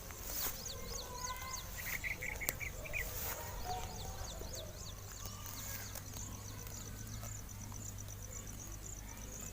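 Birds chirping in quick series of short, sliding chirps, busiest in the first few seconds, with a brief fluttering trill about two seconds in, over a steady fast high-pitched pulsing.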